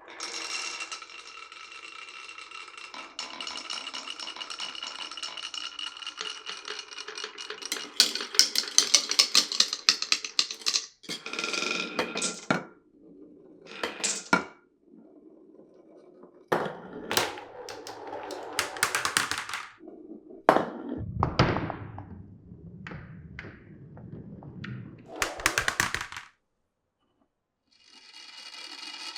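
Glass marbles rolling along a wooden marble-run course, with a steady ringing roll at first. After about eight seconds come dense rattling clacks as the marbles drop and knock against the wooden pieces, then a series of separate clattering runs and a lower rumble. The rolling stops briefly near the end, then starts again.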